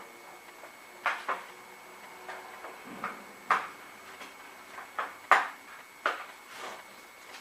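Irregular sharp plastic clicks and knocks, about eight of them, from a screwdriver prying at the snap latches of an electric lawn mower's plastic housing.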